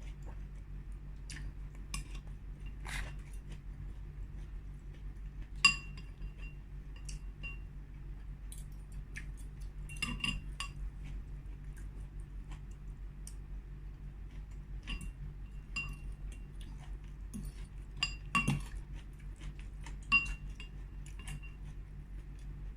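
Spoon clinking against a soup bowl at irregular intervals during a meal, some clinks leaving a brief ring, the sharpest about six seconds in, over a steady low hum.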